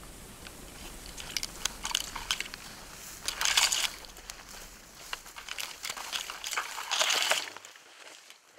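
Footsteps crunching and rustling through dry grass and brush close to the microphone, in uneven bursts, loudest about three and a half seconds in and again around seven seconds, then stopping near the end.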